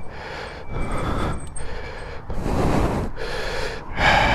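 A cyclist breathing hard right into the helmet microphone while pedalling, about one breath a second, over a low rumble of wind and road noise.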